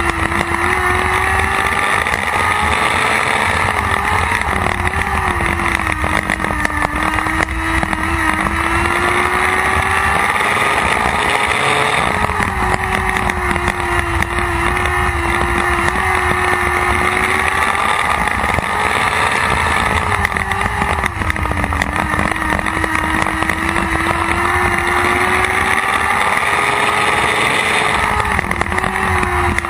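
Lightning sprint car's 600cc motorcycle engine racing flat out, heard from on board. Its note climbs down the straights and falls off into the turns, then climbs again, repeating about every eight seconds lap after lap.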